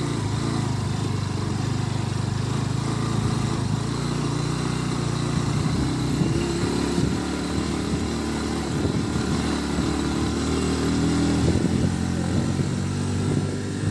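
Motorcycle engine running on a rough dirt track, steady at first, then rising and falling in revs from about five seconds in.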